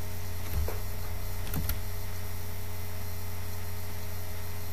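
Steady low electrical mains hum with a light hiss, the background of the narration recording. A few faint clicks come about half a second and about a second and a half in.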